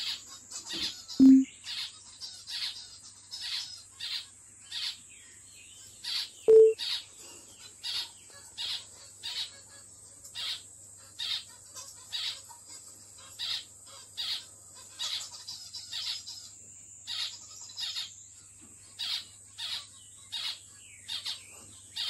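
Male zebra finch giving short, high, nasal calls over and over, a little faster than once a second. Two brief, louder low blips sound about a second in and again about six and a half seconds in.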